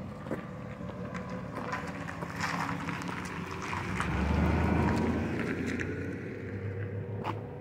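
A 2002 Chevy Astro van's 4.3-litre V6 running as the van drives slowly around the lot, its engine and tyre sound growing louder about four seconds in as it turns nearby, then easing off.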